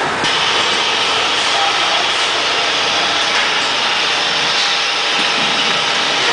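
Automatic bag-filling and sewing line running: steady machine noise from the conveyor and bag-closing sewing head, with a high hiss that comes in just after the start and holds.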